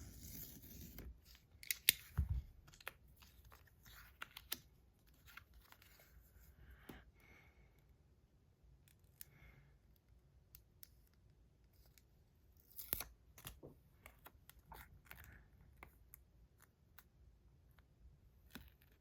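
Scissors snipping a piece of tape, with scattered small clicks and taps of handling; the sharpest snips come about two seconds in and again around thirteen seconds.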